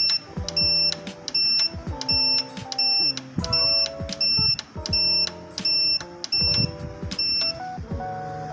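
Electronic buzzer beeping, about a dozen short high beeps a little more than one a second, stopping near the end, over background music.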